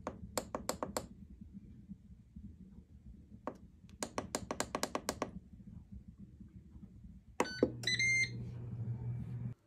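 Buttons on a Ninja DualZone air fryer's control panel pressed in quick runs of short clicks as the cooking time is set, then a beep as the cycle starts and the fan begins a steady low hum.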